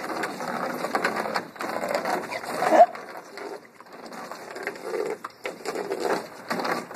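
Water splashing and slapping in a plastic kiddie pool as a dog jumps and snaps at the spray from a garden hose, in uneven bursts. Nearly three seconds in comes a short high-pitched vocal sound, the loudest moment.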